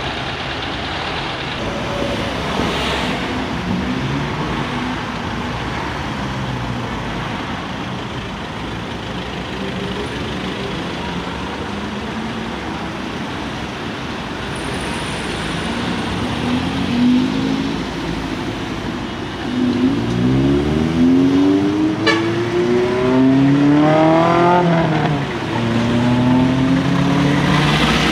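Road traffic passing at close range. In the last third, a vehicle's engine gets louder and rises in pitch as it accelerates, drops back at a gear change, then pulls again.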